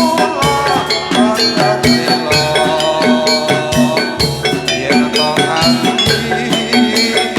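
Javanese gamelan accompaniment for a jathilan dance: metal mallet instruments and drums playing a steady, busy rhythm.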